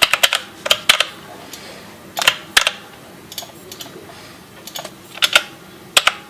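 A series of light, sharp clicks and taps at irregular intervals, some in quick pairs, like small hard objects being handled.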